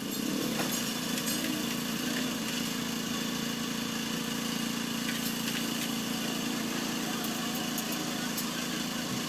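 A steady engine hum, like a motor idling, with a few faint light ticks of metal parts being handled.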